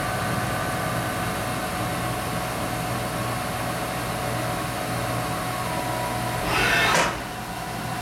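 Haas VF-2B CNC milling machine running a rotary (wobble) broach that cuts a hexagonal hole in a brass knurled nut, spindle at 1,000 RPM, a steady mechanical hum. Near the end comes a short, louder rising whine as the head pulls up out of the hole, and then the running sound drops.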